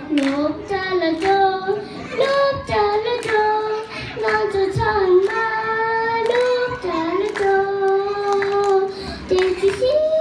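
A young girl singing a Tibetan song into a handheld microphone, holding long notes, while someone claps along in time.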